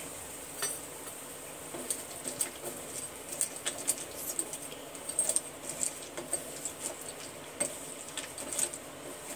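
Metal spoon stirring broken slate pencil sticks in a coconut shell, giving irregular light clicks and clinks as the pieces knock together and against the spoon.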